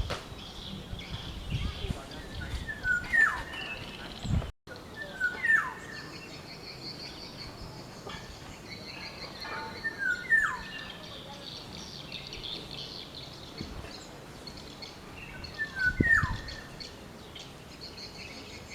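Black-naped oriole calling four times, several seconds apart. Each call is a short lead-in note followed by a quick downward-slurred whistle.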